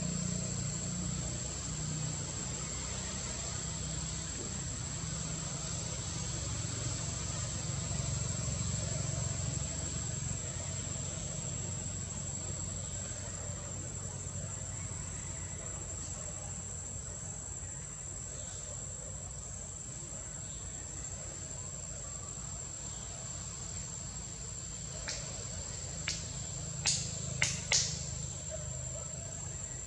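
Insects droning with a steady high-pitched tone over a low background rumble, with a few sharp clicks near the end.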